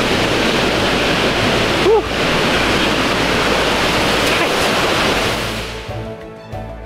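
Steady rushing of a waterfall in a rocky gorge. It fades out about six seconds in as background music comes in.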